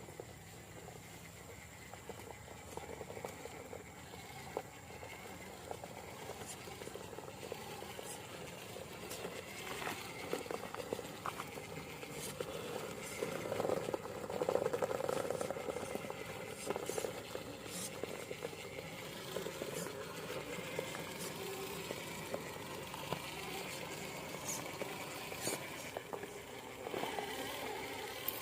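Radio-controlled scale truck driving through mud, with a wet pattering and squelching of tyres and a small motor running.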